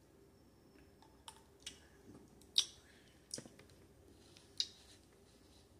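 Faint mouth clicks and smacks from sipping bubble tea through a wide straw and chewing the tapioca pearls: about six short, sharp clicks at irregular intervals.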